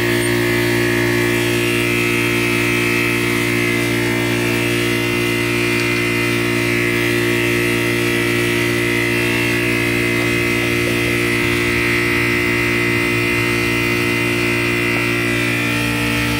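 Steady mechanical drone, a constant low hum with a higher whine above it, unchanging in pitch and level throughout.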